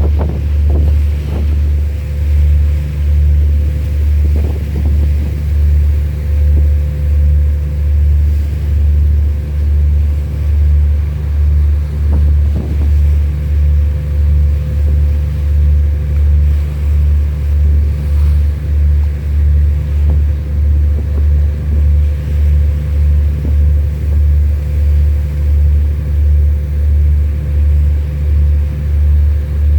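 Marine diesel engine running, a loud low throb that pulses evenly somewhat faster than once a second, with a steady hum above it.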